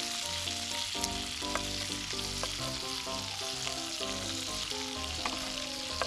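Beef steak and its pan juices sizzling steadily in a grill pan over a fire, with a few light clicks of metal tongs against the pan.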